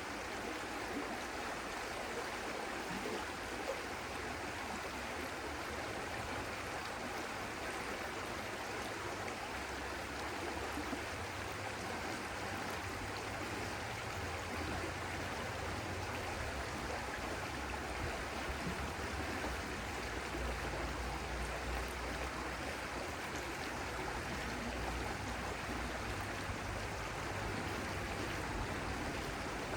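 A stream of water running steadily, an even rushing sound, with a low rumble swelling at times.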